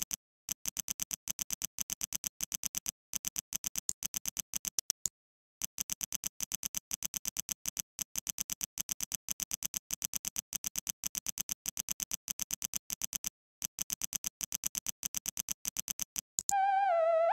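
Rapid, evenly spaced clicks, about eight a second, broken by a few short pauses: a click effect for LEGO bricks snapping into place in a speed build. Near the end an electronic, theremin-like melody with a wavering, gliding pitch starts.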